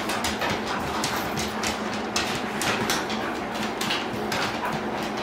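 Irregular scuffs and taps of a person and a leashed dog walking across a plywood floor, the dog's claws clicking on the wood.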